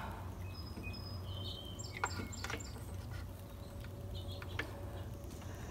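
Quiet background with a steady low hum, a few short high chirps in the first half, and a few light clicks, about two seconds in and again near four and a half seconds.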